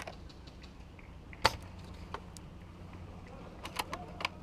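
Sharp snaps of airsoft guns firing: one loud shot about a second and a half in, then a few quieter shots close together near the end.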